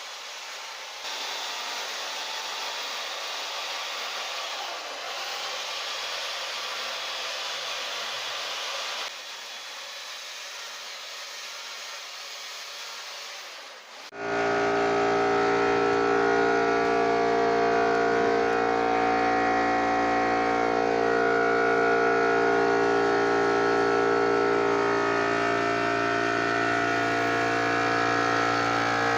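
A steady hiss, then, after an abrupt cut about halfway through, a louder small engine running steadily with a strong, slightly wavering hum: a chainsaw.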